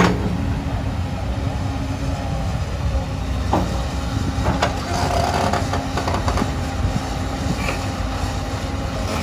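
Hyundai 220LC crawler excavator's diesel engine running steadily as it swings and dumps sand, a low drone with a faint steady hum; a sharp knock right at the start and a smaller one about three and a half seconds in.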